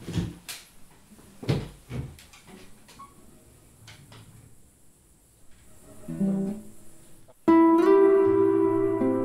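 A few knocks and bumps as a classical guitar is picked up and handled in the first seconds. About seven and a half seconds in, a loud chord starts suddenly and rings on, slowly fading, with further notes joining it.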